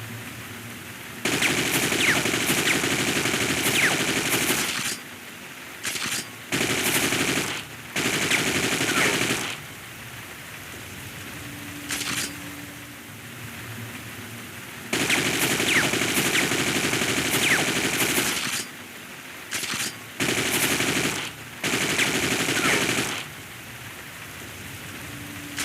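AK-47 rifle firing on full automatic: a long burst of about four seconds, then several short bursts, with the same sequence repeating about halfway through. A steady hiss fills the gaps between bursts.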